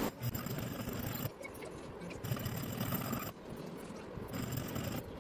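Flat hand file scraping back and forth across the cut edge of a clamped aluminium plate. It comes in stretches of about a second, with short pauses between them.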